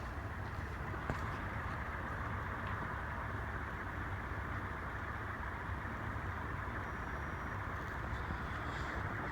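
Banvile Gold Line 36-inch industrial ceiling fan running on high speed: a steady rush of moving air from its aluminum blades over the low hum of its cast iron motor.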